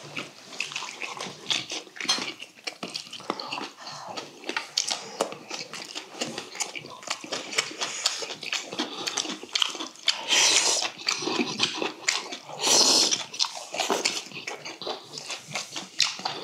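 Close-up eating sounds: chewing and wet mouth smacking, with light clicks of chopsticks on stainless steel bowls. There are two loud, breathy slurps of hot braised bracken and stew, about ten and thirteen seconds in.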